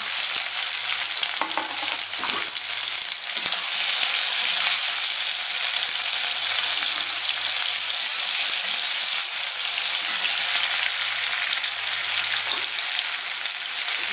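Sliced onion and garlic sizzling steadily in hot oil in a kadai, stirred now and then with a steel spatula.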